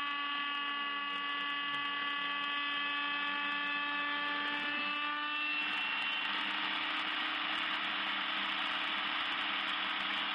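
Small CNC milling machine's spindle motor running while its end mill cuts into a white block, with a steady high whine made of several tones. About halfway through, the tones give way to an even rushing noise at the same level.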